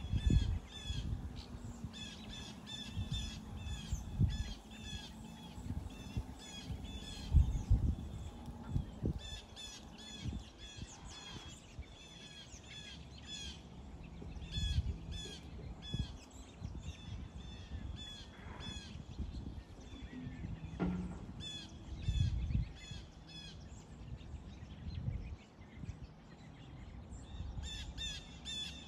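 Birds calling outdoors, a quick series of short high chirps repeated a few times a second, broken by several dull low thumps and rumbles on the microphone.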